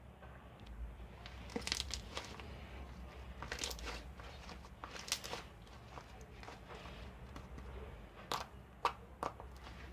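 Slime being squished and pressed by hand, making irregular small pops and crackles with a few sharper clicks near the end.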